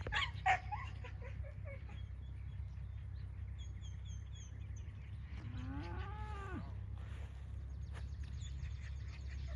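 A cow mooing once, a drawn-out call that rises and then falls in pitch, about six seconds in. Small birds chirp in short repeated notes, a sharp knock sounds at the very start, and a steady low rumble runs underneath.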